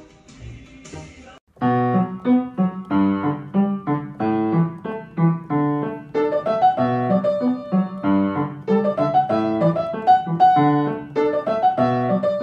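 Background piano music, a melody of short struck notes, coming in loud about a second and a half in after a faint, quieter start.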